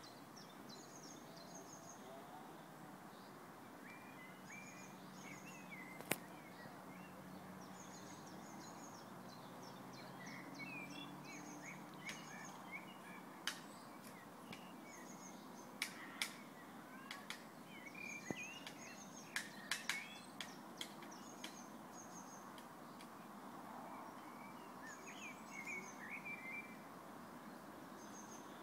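Small woodland birds chirping, repeating short high calls over a steady low background hiss, with a dozen or so sharp taps, one loud single tap and then a loose cluster of them around the middle.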